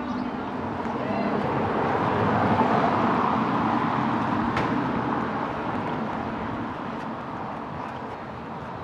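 A car driving past, its engine and tyre noise rising to a peak about two to three seconds in and then slowly fading away.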